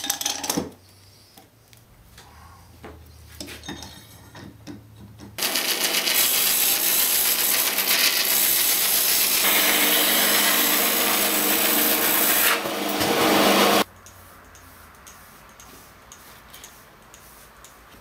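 A power tool working wood runs for about eight seconds from about five seconds in, a loud, steady noise that starts and stops abruptly. Before it come a brief loud clatter at the start and a few light knocks.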